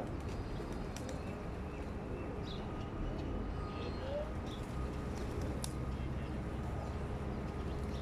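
Flock of feral pigeons cooing, with scattered short chirps, over a steady low rumble of road traffic.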